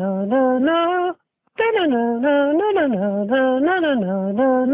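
A cartoon character's voice humming a short tune over and over as a phone ringtone, breaking off for a moment about a second in and then starting the same phrase again.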